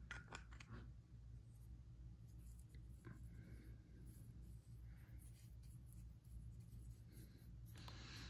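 Near silence: a paintbrush faintly scratching and dabbing shade wash into the textured surface of a sculpted figure, with a few light clicks in the first second, over a low room hum.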